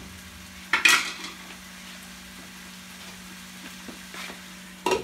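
Diced potatoes frying softly in oil in a pan over a low flame, under a steady low hum. A sharp clatter of a utensil about a second in, and another near the end.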